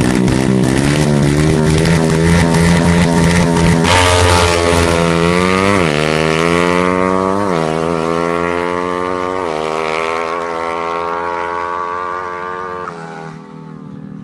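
Drag-tuned motorcycle engine held at high revs, then accelerating hard through the gears: the pitch climbs and drops sharply at each of three upshifts. It fades away near the end.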